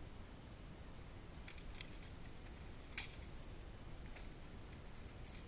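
Faint, sharp metallic clanks from fighters in plate armour wielding pollaxes. There is a small cluster of clanks about one and a half seconds in, one louder single strike about three seconds in, and a few light clinks near the end.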